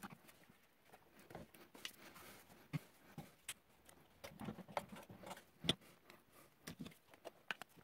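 Faint scattered clicks and short scrapes of a blade picking lint and hair off a front-loading washer's plastic drain pump filter.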